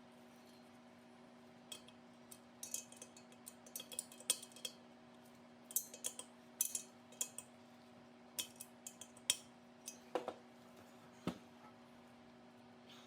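Small metal parts and tools clinking and tapping in irregular runs as the diesel heater's burner parts are handled, with two duller knocks near the end. A steady low hum runs underneath.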